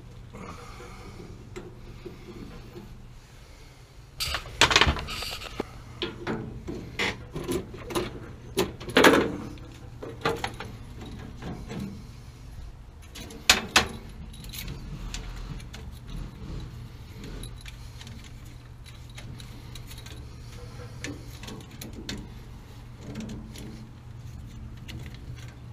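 Metallic clinking and rattling of tools and fittings being handled, in a busy cluster with a few sharp knocks in the first half, then quieter shuffling. A steady low hum runs underneath.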